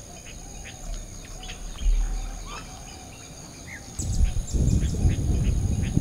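Outdoor ambience of birds chirping now and then over a steady high-pitched insect drone. About four seconds in, a louder low rumble comes in.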